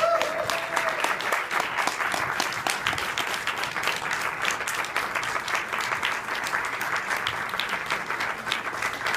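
Audience applauding steadily: many hands clapping at once in a theatre auditorium, welcoming a guest to the stage.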